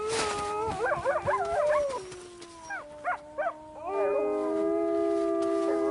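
A wolf pack howling in chorus. Short rising-and-falling yipping howls come in the first two seconds, then from about four seconds several long howls overlap at different pitches.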